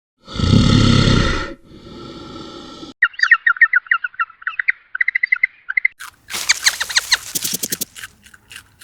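A run of separate animal calls: a loud call in the first second and a half and a quieter one after it, then rapid, repeated bird chirps for about three seconds, then a fast series of sharp chirps and clicks.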